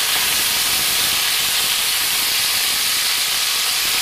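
Boneless chicken thighs searing in hot oil in a stainless steel sauté pan, a steady sizzle and hiss as the browned pieces are turned over with tongs.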